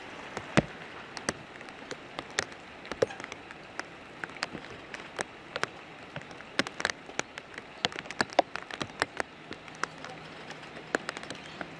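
Steady rain falling, with many sharp, irregular taps of individual drops landing close by.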